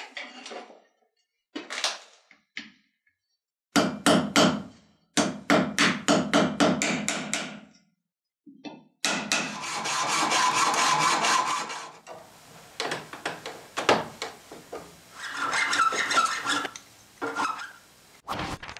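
A quick run of sharp knocking strikes, then a hand saw cutting with steady strokes, followed by scattered knocks.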